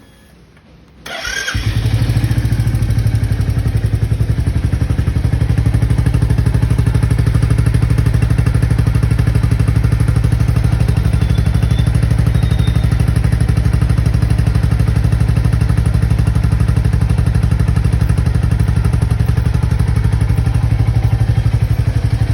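Royal Enfield Bullet 350's J-series single-cylinder engine with its stock exhaust, cold-started: the starter turns briefly about a second in, the engine catches, and it settles into a steady idle with an even, rapid beat.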